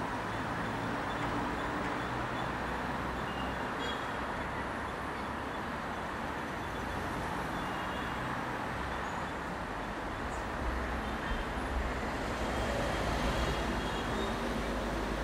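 Steady street traffic from cars and electric scooters passing. It gets a little louder and deeper near the end as a vehicle goes by close.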